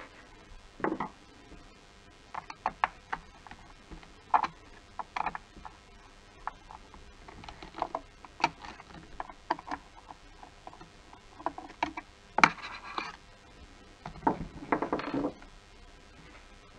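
Irregular clicks and knocks of hard plastic trim being handled on a Mercedes W212 steering wheel, with the wheel shifted about on a wooden table. There is one sharper click about three quarters of the way through, followed by a short scraping rustle.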